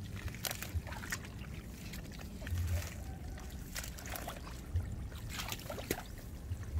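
Hands groping in wet mud and shallow muddy water at a pond's edge: scattered squelches, slaps and small splashes.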